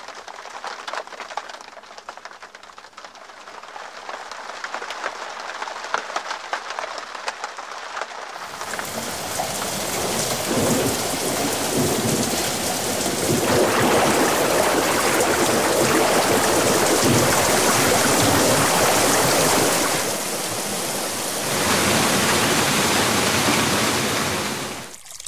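Rain sound effect: scattered drops at first, then about eight seconds in a heavy downpour sets in suddenly and holds steady, easing briefly about twenty seconds in before stopping abruptly just before the end.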